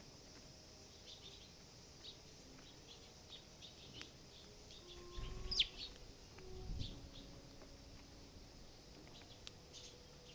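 Eurasian tree sparrow feeding close to the microphone: a steady run of small, sharp pecking and seed-cracking clicks, with one loud chirp about five and a half seconds in and brief low rumbles around it.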